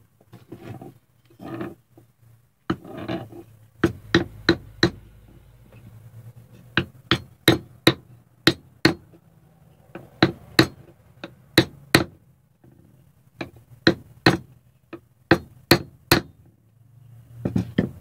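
A small hammer tapping a wooden block held over a cigar box guitar's fingerboard, driving fret wire into its slot. There are about twenty sharp taps at an uneven pace, after a few seconds of softer handling as the block is placed.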